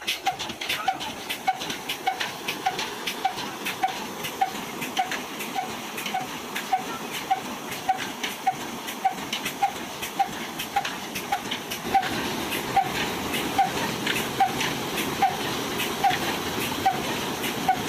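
Water gushing from three pump outlet pipes into a brick tank, driven by a 35 HP Ruston Hornsby diesel engine whose regular beat comes through about twice a second.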